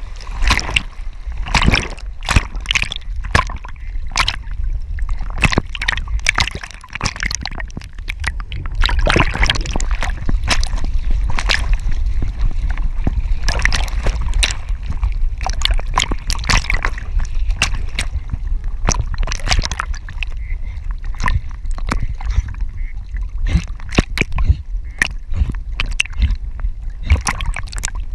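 Water splashing and sloshing close around a harness-mounted GoPro as a Dutch Shepherd swims through lake water, with a dense, irregular run of splashes from the dog's paddling over a steady low rumble of water.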